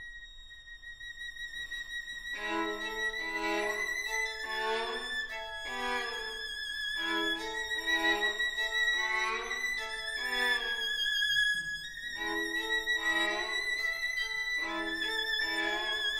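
Two violins playing a duo. One holds a high note with vibrato, quiet at first, and about two seconds in the other joins below it with short repeated notes. The music grows louder over the first few seconds.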